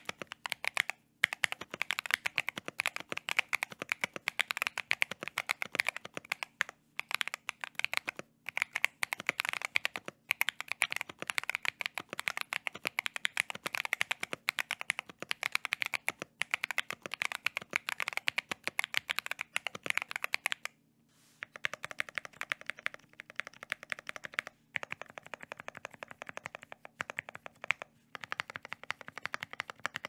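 Fast typing on a Bakeneko60 mechanical keyboard with lubed Akko CS Ocean Blue tactile switches: a rapid run of keystroke clacks with a few brief pauses, softer from about two-thirds of the way through. It is a sound test for the rattle the reviewer hears when typing at speed, which he puts down to the switches' tactile leaf pinging.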